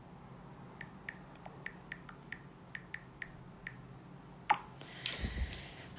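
Faint ticks of a smartphone being tapped and typed on, about ten taps over three seconds. Near the end comes a knock and a rustling as the phone is handled.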